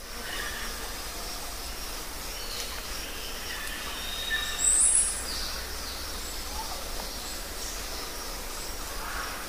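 Outdoor ambience: a steady hiss over a low hum, with scattered short bird chirps and one louder, higher call about five seconds in.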